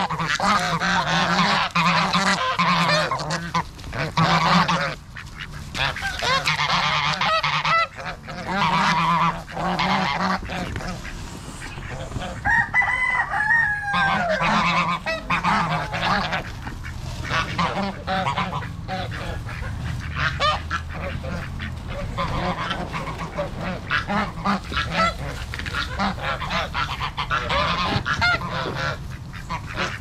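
A flock of domestic geese and ducks calling, with repeated honks and quacks and one longer gliding call about halfway through. Under the calls, dry leaf litter rustles and crackles as the birds peck and forage for feed.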